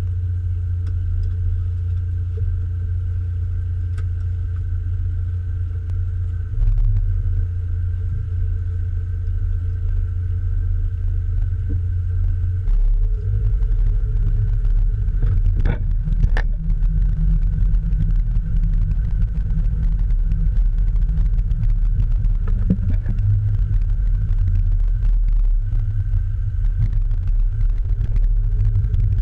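A low, steady engine-like rumble with faint steady tones above it; it grows louder in two steps, and two sharp knocks come about halfway through.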